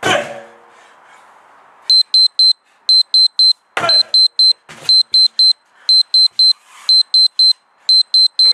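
A 34 kg sledgehammer thuds heavily onto a rubber tyre at the start, with another heavy thud or two around four to five seconds in. From about two seconds in, an electronic timer alarm beeps in quick groups of four, about one group a second, marking the end of the 10-minute timed set.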